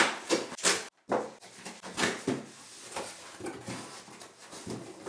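Cardboard shipping box being opened and handled, its flaps scraping and rustling, with several sharp knocks in the first two seconds and softer rustling after, as a boxed mouse is pulled out.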